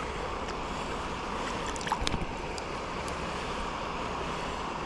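Steady rush of river water, with a few sharp ticks about two seconds in.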